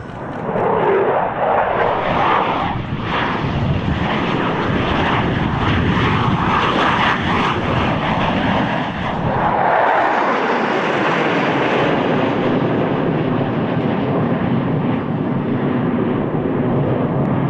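Fixed-wing aircraft engines running loud in a low pass over the field. The roar swells about a second in and holds, its pitch sweeping downward as the plane goes by.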